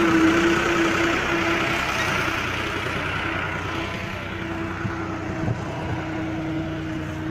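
Tractor's diesel engine running steadily under load as it pulls a plough through dry, hard ground that is not breaking up, the engine sound slowly fading as the tractor moves away.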